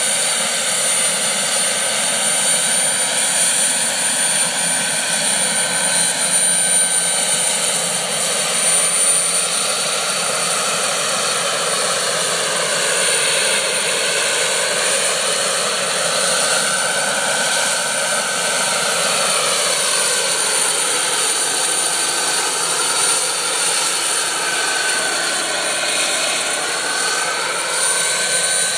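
Jakadofsky model gas turbine in a scale RC helicopter, running steadily with a high whine mixed with rotor noise as it flies. Its tone sweeps and shifts as the helicopter turns and moves about in the second half.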